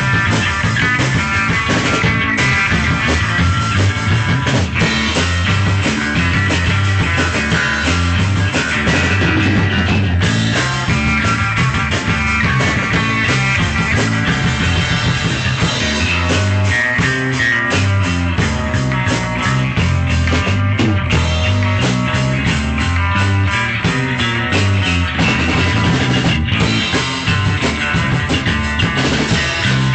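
Loud rock music with electric guitar and a steady drum beat, with a drum kit played along to it.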